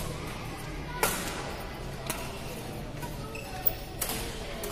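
Badminton rackets striking a shuttlecock during a rally: four sharp hits, the loudest about a second in, ringing briefly in the hall, over a background murmur of voices.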